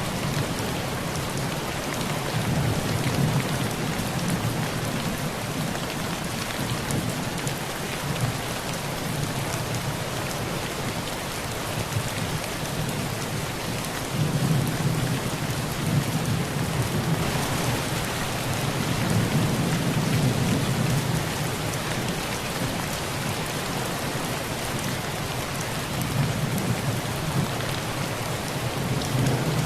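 Heavy rain falling steadily on a tin roof, with low rolls of thunder swelling and fading several times.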